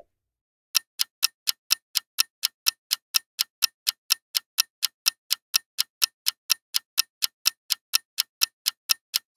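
Clock-ticking sound effect for a quiz countdown timer: sharp, even ticks, about four a second, starting just under a second in.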